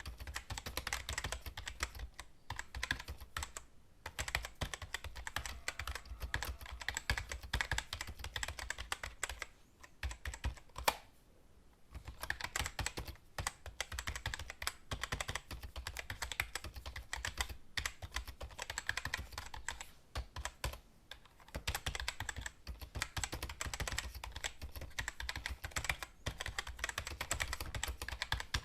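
Computer keyboard typing: rapid, uneven runs of keystrokes with short pauses between runs, and one sharper, louder click about eleven seconds in.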